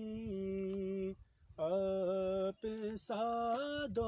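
A man singing a naat, an Urdu devotional poem, with no instruments, drawing out long held notes. The voice breaks off for about half a second just over a second in, and briefly again about two and a half seconds in.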